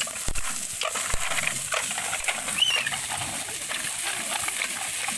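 Scallop shells clattering and knocking as handfuls are dropped into an aluminium pot, over the sizzle of hot oil with garlic and shallots. A short high squeak or chirp about two and a half seconds in.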